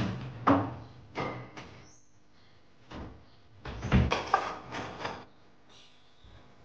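Kitchen cabinet being used: a few knocks and clatters in the first two seconds as things are set on a lower shelf, then a louder cluster of knocks around four seconds in as the cabinet door is pushed shut.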